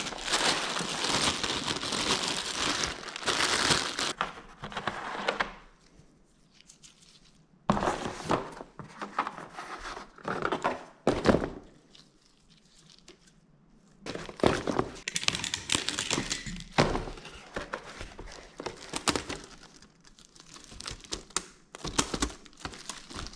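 Plastic wrapping crinkling and cardboard packaging rustling as engine gaskets are unpacked by hand, with a few knocks. It comes in three spells, with short pauses about 6 and 13 seconds in.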